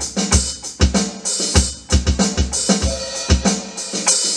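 Alesis Command Mesh electronic drum kit played through its module on the rock preset kit: a drum groove of bass drum and snare hits under a continuous cymbal wash.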